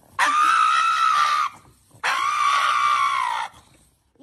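Pug screaming while its nails are clipped: two long, high-pitched screams, each about a second and a half, held at a steady pitch with a short gap between them.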